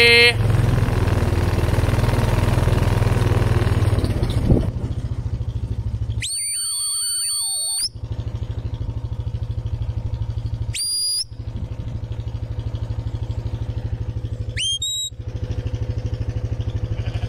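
Quad bike engine running, settling into a steady idle after about four and a half seconds. Over it, three shepherd's whistle commands to a working sheepdog: a longer whistle about six seconds in, then two short rising ones about eleven and fifteen seconds in.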